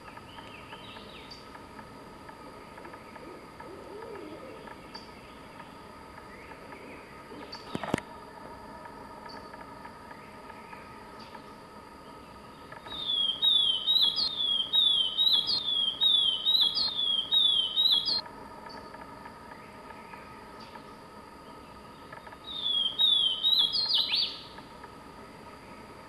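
Swainson's warbler singing: a loud run of quick, downward-slurred whistled notes lasting about five seconds, then a shorter burst of the same notes a few seconds later. A single sharp click sounds about eight seconds in.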